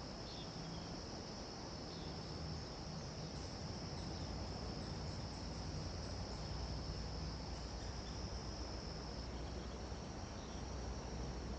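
Chorus of insects trilling in one steady, unbroken high-pitched tone, over a low rumble that swells slightly a few seconds in.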